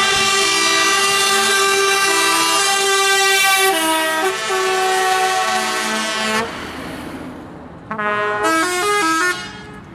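Scania truck's multi-note musical air horn playing a tune, its notes stepping up and down, cutting off about six and a half seconds in. About a second and a half later the horn plays a second, shorter burst of notes.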